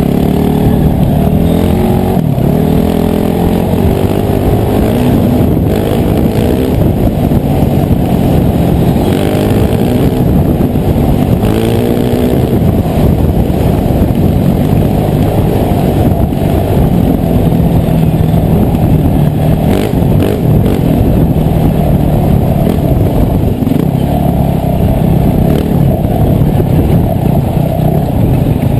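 Dirt bike engine under load on a trail ride, its pitch rising and dropping repeatedly as the rider revs through the gears and backs off.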